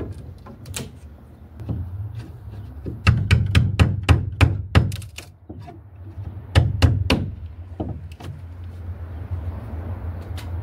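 Hammer knocking on the wooden parts of a plywood boat: a few blows near the start, then a quick run of taps about three seconds in, and another short run about six and a half seconds in. A steady low hum lies underneath.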